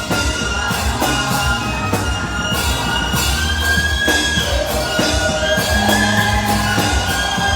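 Live band music: a sustained saxophone melody with sliding notes over drums and bass.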